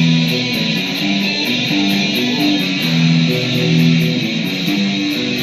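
Guitar music: a steady strummed rhythm over a repeating pattern of low notes, with no voice.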